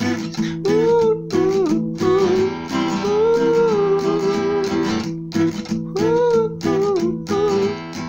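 Acoustic guitar strumming under a man's voice singing a wordless melody in long, bending phrases.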